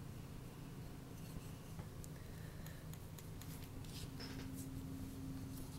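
Faint scratchy rustling and small ticks of paper being handled on a desk, over a low steady hum.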